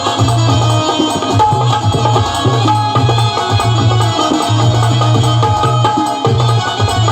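Indian folk devotional music, with tabla-like hand drums keeping a rhythm over a pulsing low bass note and sustained melody.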